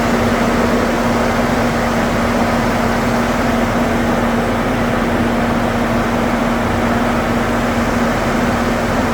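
2008 Saturn Vue running with its air conditioning on: a steady rush of fan and engine noise with a constant hum. The AC compressor is staying engaged rather than cycling on and off as the system is topped up with refrigerant from a can.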